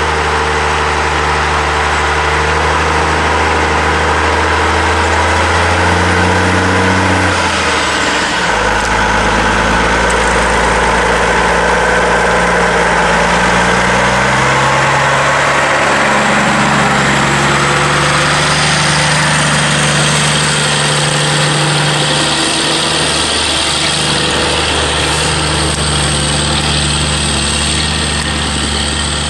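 Diesel engine of a loaded log truck pulling slowly along a dirt road and passing close by, running steadily while its engine note drops and rises a few times as the engine speed changes.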